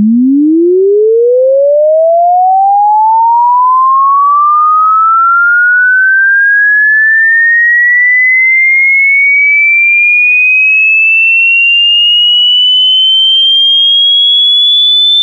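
A pure electronic sine tone sweeping steadily upward in pitch, from a low hum to a high whistle, at constant loudness.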